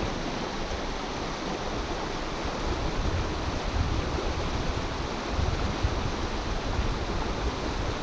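Steady rushing of a shallow stream's current flowing hard over rocks, getting a little louder a few seconds in.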